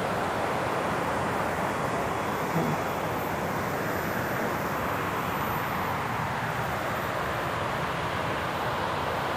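A large river's water rushing steadily, an even, unbroken noise.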